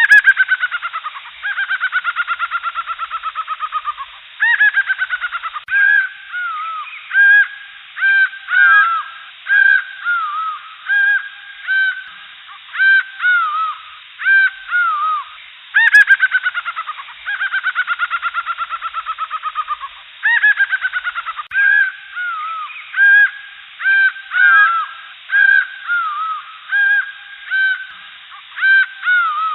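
Jungle birds calling: a steady string of short arching call notes, broken by long trills of rapid falling notes. The recording loops about halfway through, with a faint click where it repeats.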